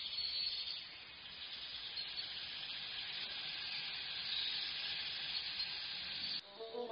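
Trout broth simmering in a bowl on a grate over a wood fire, a steady hiss. Music starts abruptly near the end.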